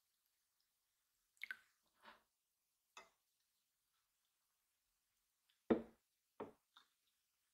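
Last drips of freshly brewed coffee falling from a glass server's spout into a full cup: a handful of separate drops with gaps between them. The loudest sound, about six seconds in, is a duller tap.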